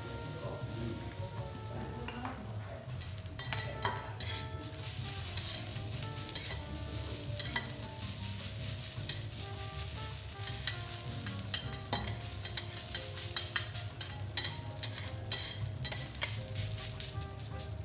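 Garlic rice frying on a steel teppanyaki griddle without added oil, sizzling steadily while two metal spatulas chop and turn it. The spatula edges scrape and tap against the steel plate many times.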